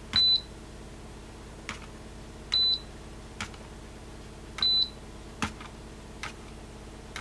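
Farmtek Polaris timing system beeping as its light-curtain beam is broken: three short high beeps about two seconds apart, with a fourth at the very end. Faint clicks between the beeps and a low steady hum underneath.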